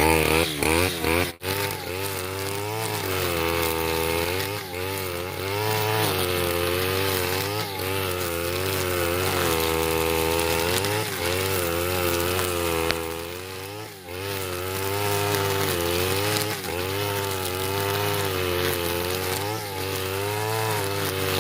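Brush cutter engine running at high speed while cutting grass, its pitch wavering up and down every second or two, with a brief drop in revs about a second in and another about two-thirds through.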